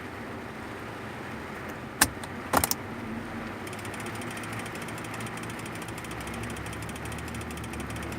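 Mechanical clicking noise: a sharp click about two seconds in and a short cluster of clicks half a second later, then a fast, steady ticking over a low hum.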